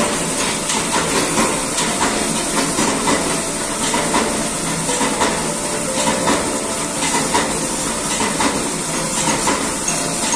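Screw air compressor running: a loud, steady, hissy machine noise that does not change.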